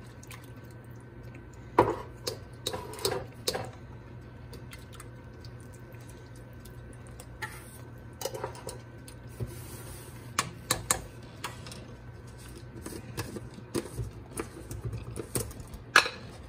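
Spoon scraping bouillon paste out of its jar and knocking against the inside of a stainless steel stockpot as the paste is stirred into the broth: scattered clinks and scrapes over a steady low hum.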